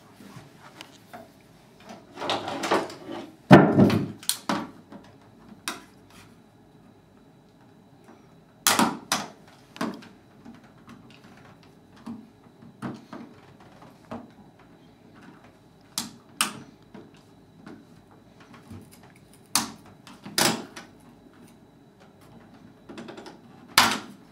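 Putty knife and utility knife scraping and prying at the plastic hole plugs over the roller adjustment screws in a patio door sash rail, with irregular sharp clicks and knocks of the tools against the frame.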